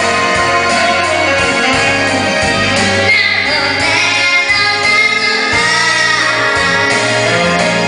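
A woman singing a song over instrumental accompaniment, holding long notes.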